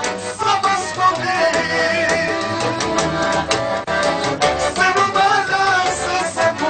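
Accordion playing a lively Romanian folk tune with band accompaniment, running without a break.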